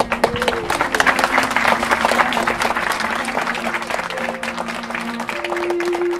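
Audience of wedding guests applauding, the clapping swelling about a second in and thinning near the end, over soft background music with long held notes.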